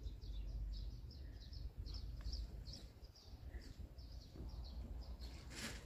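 Small birds chirping, a quick run of short high notes a few a second, over a low steady background rumble.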